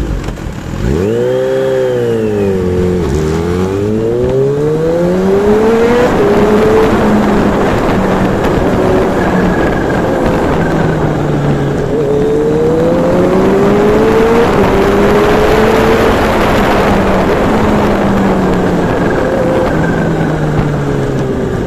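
Kawasaki Z H2's supercharged inline-four engine revved sharply, then accelerating through several gears, its pitch climbing and falling back at each upshift. Heavy wind noise on the microphone.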